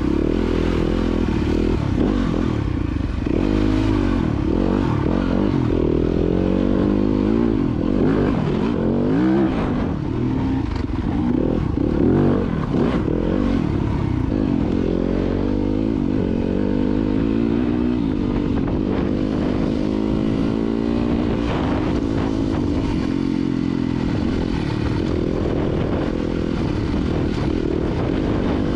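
Dirt bike engine running with changing throttle, its pitch rising and falling again and again, with scattered knocks and rattles.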